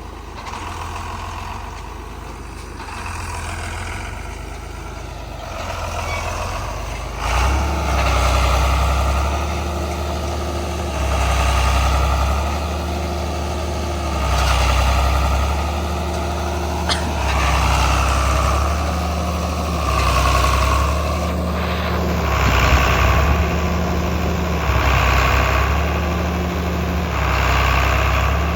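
Farm tractor engine running. About seven seconds in it steps up sharply and gets louder, then swells and eases over and over, about every three to four seconds, as it works under load.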